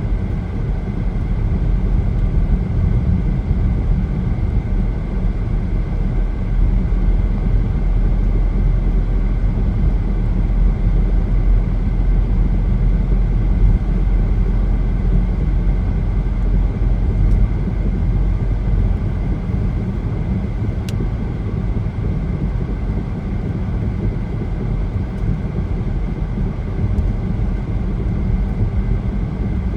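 Steady road and tyre noise with engine drone inside a car's cabin while it drives along the highway, a continuous low rumble.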